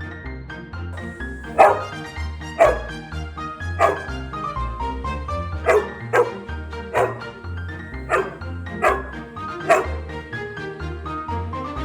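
A Koolie dog barking, about nine short single barks roughly a second apart, over background music with a steady bass line.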